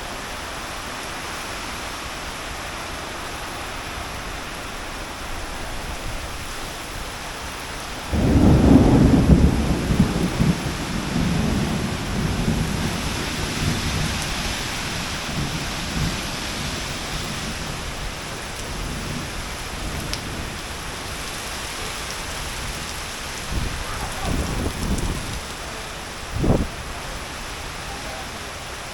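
Heavy rain falling steadily. About eight seconds in, a sudden loud low rumble breaks in and fades over several seconds, with a few weaker low rumbles and a short thump near the end.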